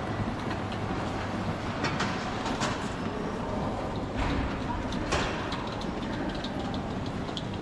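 Steady hum and rumble of a busy airport terminal concourse, with scattered clicks and taps through it.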